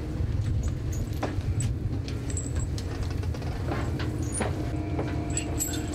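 A 220-horsepower trawler diesel engine running, a steady low rumble, with a few light clicks and clinks scattered over it.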